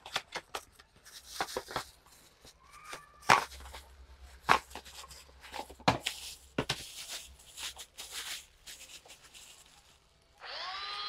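Cardboard packaging and a plastic bag rustling and clicking as a USB mini electric garlic chopper is unboxed and handled. Near the end its small motor starts and runs with a steady whir.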